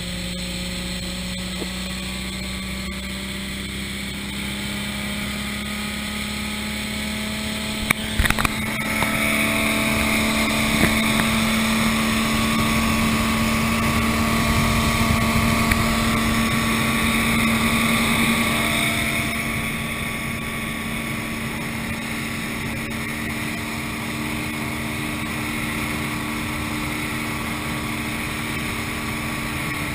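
A 21-foot Four Winns cuddy cabin boat's engine running steadily at cruising speed, with wind and water rushing past. Sharp knocks come about eight seconds in, after which the engine and spray are louder for about ten seconds before settling back.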